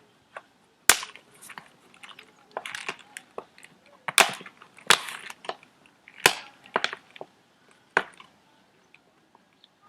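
A series of irregular sharp clicks and knocks with short bursts of crackling between them: hand-work handling noises. The loudest knocks come about a second in and again around four to six seconds in, and the last one is near eight seconds.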